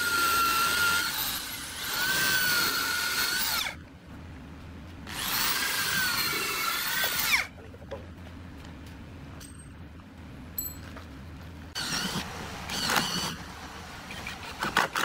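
Handheld power drill boring into a hardwood block in three runs of about two seconds each, its motor whine wavering in pitch as the bit bites. Near the end, fainter drilling and a few sharp clicks.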